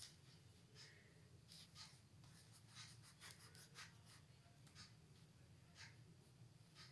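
Faint pencil strokes scratching on a sheet of drawing paper: short, irregular scrapes a few times a second at most, over a low steady hum.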